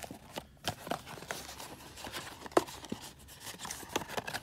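Small cardboard blind box handled in the hands, its glued flap being worked open: scattered light taps, scrapes and clicks of paperboard under the fingers, with one sharper click about two and a half seconds in.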